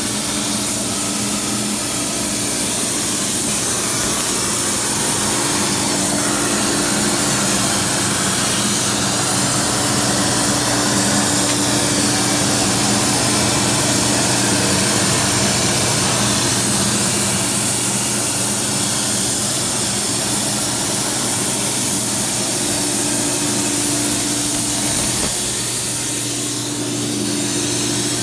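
A CNC tracker cutting torch cutting 3/8-inch plate for stair stringers, giving a steady hiss with a low, even hum under it.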